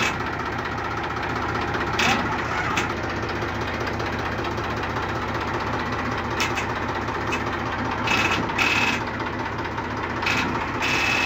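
An engine idling steadily, with a few short, sharp clicks over it.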